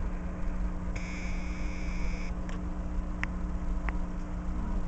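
Steady low mechanical hum of the aquarium's air pump and bubbling filter. About a second in, an electronic beep sounds for just over a second, followed by three short high pings.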